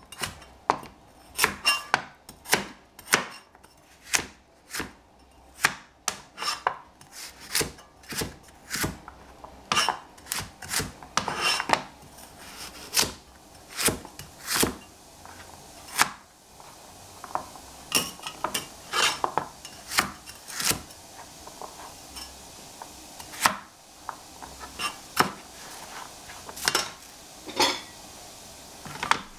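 Kitchen knife chopping on a cutting board: irregular sharp strikes, quick and dense at first, then fewer and more spaced out in the second half.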